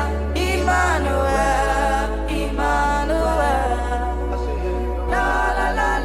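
Gospel song studio recording: voices singing over sustained bass notes that shift about every two seconds.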